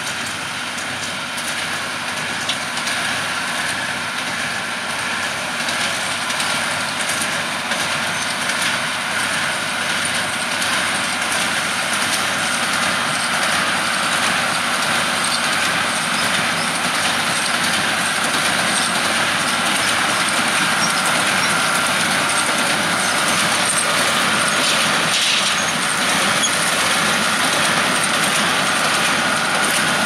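Massey Ferguson 6190 tractor's six-cylinder diesel engine working steadily as it pulls a Welger AP830 small square baler, the baler's mechanism running with it. The sound grows gradually louder.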